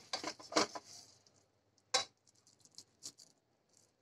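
Serving spoon scraping and knocking against an aluminium pressure cooker and a steel plate while dishing out khichdi. A quick run of clicks and scrapes in the first second, a sharp knock about two seconds in and another about a second later, then faint soft ticks.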